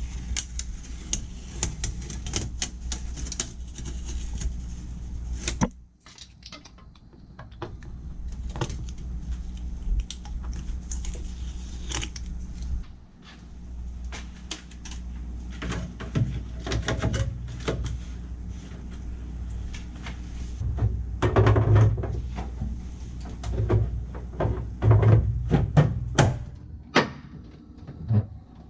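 Irregular clicks, taps and knocks of hands-on installation work, over a steady low hum. The sound drops out briefly about six seconds in, and the knocks come thickest and loudest near the end.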